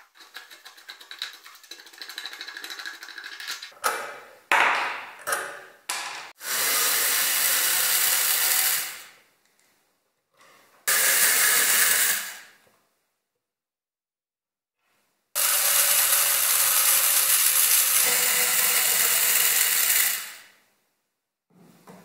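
Pliers grinding and clicking on a rusty nut and stud for the first several seconds, then a cordless drill-driver running in three spells of a few seconds each, the longest near the end, as it turns the screws on a vintage coffee grinder's lid.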